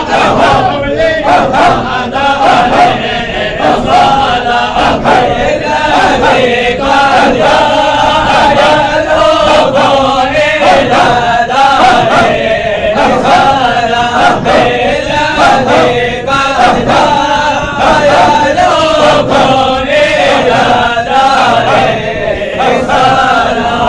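A group of men chanting together in a steady, regular rhythm: a Sufi halara dhikr.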